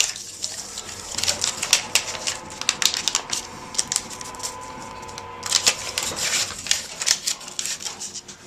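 Rapid, irregular mechanical clicking and clattering, with a faint steady hum beneath it.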